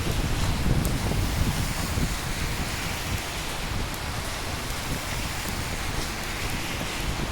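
Steady rain falling, with the low rumble of a roll of thunder dying away over the first couple of seconds.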